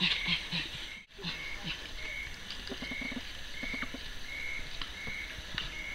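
Bonobos calling in quick short pitched calls, about four a second. The calls break off about a second in, then come back fainter and only now and then. A short high chirp repeats steadily underneath, about once every three-quarters of a second.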